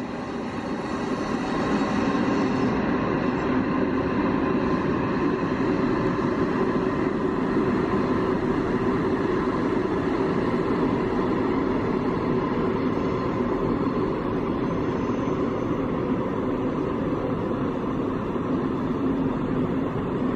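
Container freight train hauled by three ÖBB electric locomotives running past, a steady rolling noise that swells about two seconds in and then holds even.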